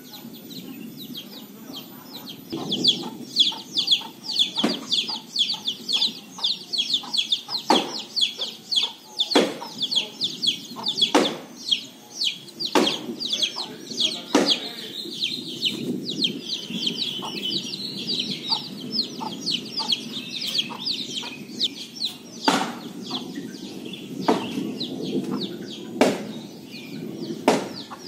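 Sharp single knocks every one to two seconds, like blows of an axe or machete chopping wood, over a fast, high chattering of birds.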